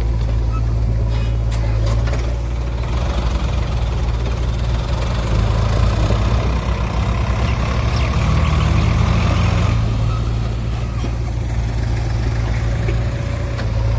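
Heavy diesel engine running steadily. It works harder for a few seconds in the middle of the clip, then settles back.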